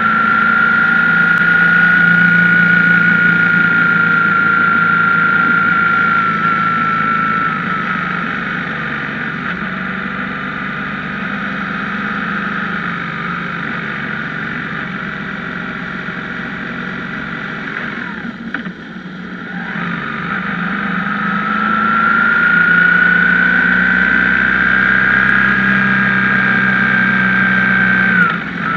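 BMW R1150GS air-cooled boxer twin running under way, with a high whine that rises and falls with engine speed. The engine eases off briefly about two-thirds through, then pulls up again and is cut back suddenly near the end.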